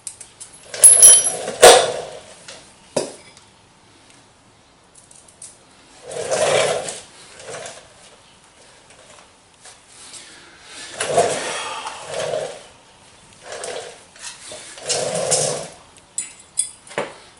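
Metal parts being handled and fitted on a milling machine: intermittent clanks, knocks and short scraping sounds. There are sharp knocks near the start and the end.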